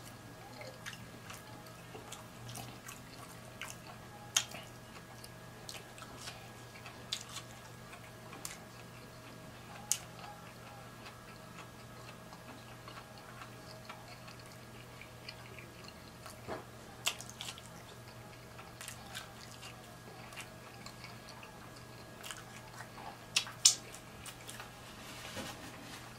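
Close-miked chewing and mouth sounds of a person eating seafood-boil shrimp, with scattered sharp clicks, the loudest near the end. A faint steady hum lies underneath.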